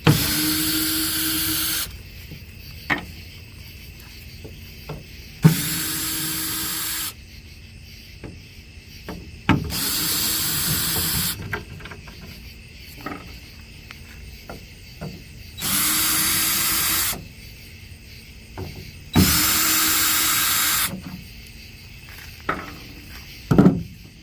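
Cordless drill with a T30 Torx bit backing screws out of a tailgate panel: five separate runs of about two seconds each, the motor's pitch climbing as it spins up and then holding. Short clicks and knocks fall between the runs as each screw comes free and the bit is moved to the next one.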